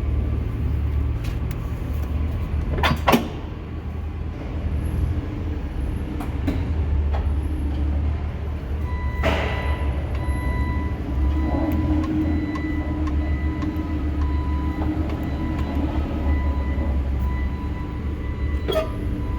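Crown electric forklift running on test after a motor controller repair: a steady low hum, with two sharp clunks about 3 and 9 seconds in. A steady whine at two pitches sets in with the second clunk.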